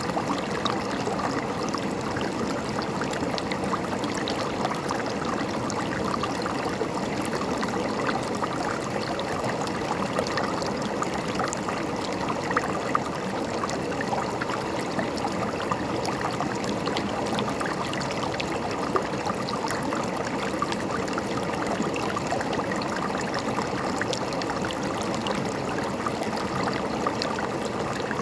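River water flowing over rocks, a steady babbling and gurgling with small splashes throughout.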